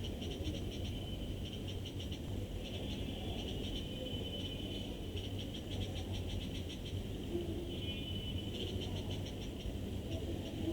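High, rapidly pulsed trilling calls, in runs of a few seconds with short breaks, over a steady low hum from the CCTV recording.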